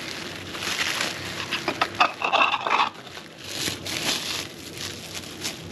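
Cling film crinkling and crackling in irregular bursts as a pressed meat patty wrapped in it is pulled out of a plastic burger press.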